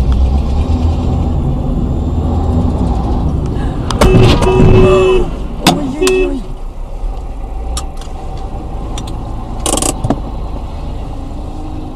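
Steady road and engine rumble inside a car, then about four seconds in a loud crash: a cluster of sharp impacts as a motorcycle goes down in traffic, followed by a held tone and a wavering, voice-like cry. One more sharp knock comes near the end.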